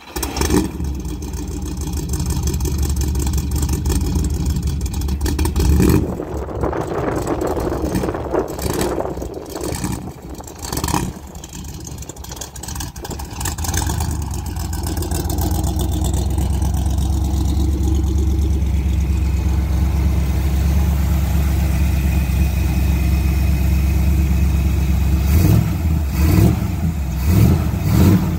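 A 1985 Camaro Z28's V8 engine catching at the start and running at idle after a radiator replacement, pushing fresh coolant through the new radiator, with a few short blips of the throttle near the end.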